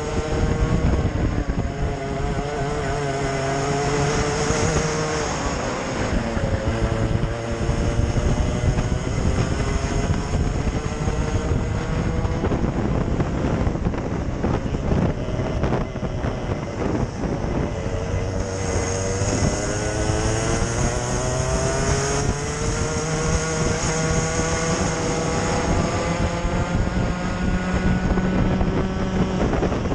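Onboard sound of a two-stroke racing kart engine at full race pace. Its pitch climbs steadily as it accelerates and drops sharply twice as it slows for corners, then climbs again.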